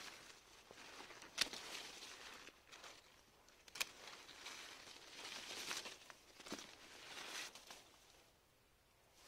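Hand pruning shears cutting branches of a young cherry tree: a few sharp snips among the rustle of leaves and twigs being handled.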